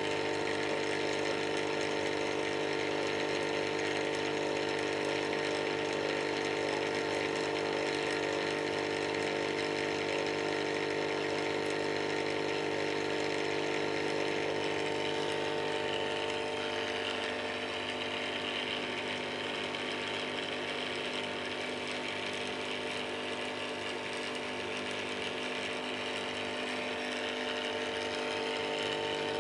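Aquarium air pump buzzing steadily, with a hiss above the hum, a little softer through the second half.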